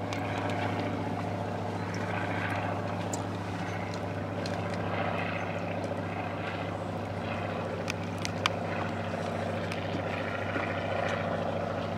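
Boat engine running steadily, a low even hum, with a faint wash of water or wind over it and a few small handling clicks, one a little louder about eight seconds in.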